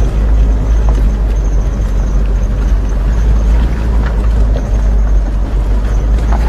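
Off-road SUV driving over a rough dirt track, heard from inside the cabin: a steady, loud, low rumble of engine and tyres on the gravel, with a few light rattles.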